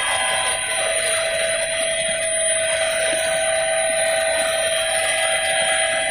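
Helicopter cabin noise in flight: a steady high-pitched whine of several tones over a constant rushing hiss.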